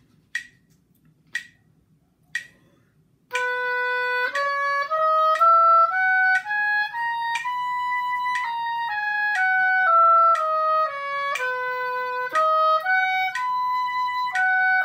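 Metronome clicking once a second, then an oboe playing the B major scale at quarter note = 60 in the all-state pattern: the Bs held as quarter notes and the other notes as eighth notes, up an octave from B and back down, then beginning a pattern that skips among the lower notes.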